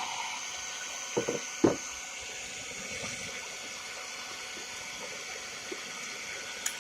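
Hair dryer blowing steadily, heating a motorcycle headlamp to soften the lens sealant. Two short knocks sound between one and two seconds in, the second louder.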